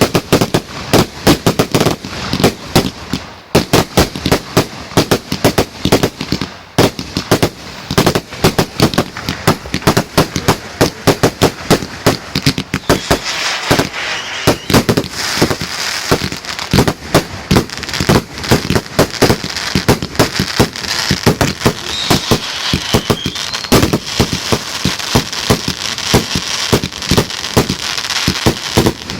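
Fireworks going off in a rapid, continuous barrage of bangs, several a second, with a crackling hiss building up over the second half.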